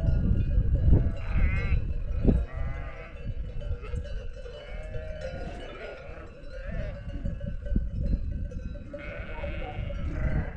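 A flock of sheep bleating, several wavering calls overlapping, the clearest about a second and a half in and again near the end, over a low rumbling noise.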